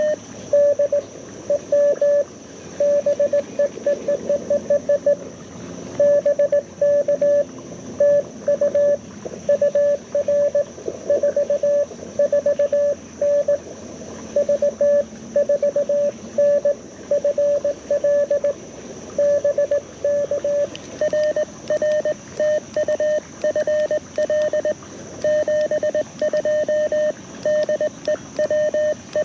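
Morse code (CW) tones from an LNR Precision Mountain Topper MTR4B transceiver played through a small portable speaker: one steady pitch keyed on and off in quick dits and dahs, with short gaps between characters and words, as a contact is exchanged.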